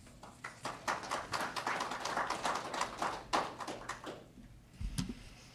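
Applause from a small group of people, many irregular claps that die away after about four seconds. A soft low bump comes near the end.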